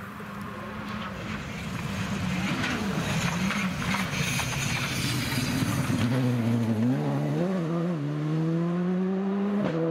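Rally car engine at full throttle on a gravel stage, getting louder as it approaches over the first few seconds. Later the engine note drops and climbs again through gear changes, then rises steadily near the end.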